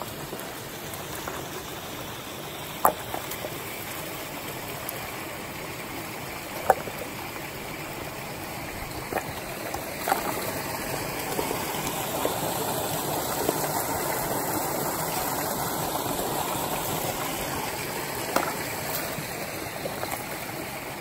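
Shallow rocky mountain stream rushing steadily over stones, a little louder in the middle. A few sharp knocks stand out, the loudest about three and seven seconds in.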